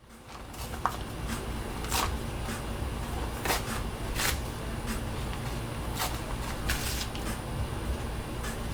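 Scattered short rustles and clicks of paper being handled, over a steady low hum; one rustle near the end of the first seven seconds lasts a little longer.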